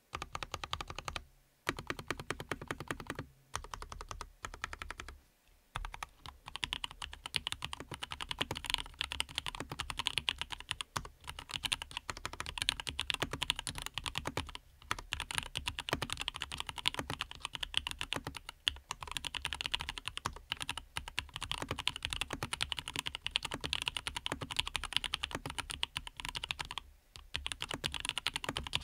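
Dreadnought custom mechanical keyboard being typed on steadily: a fast, continuous stream of keystrokes from lubed Everglide Aqua King linear switches with filmed housings, broken by a few short pauses.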